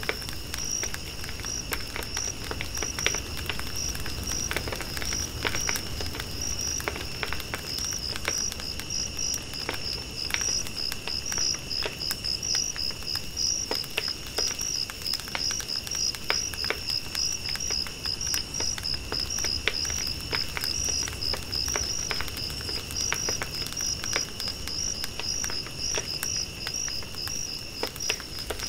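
Insects chirping: a rapid, pulsing high chirp repeating several times a second over a steady, lower continuous buzz that stops near the end, with scattered faint clicks.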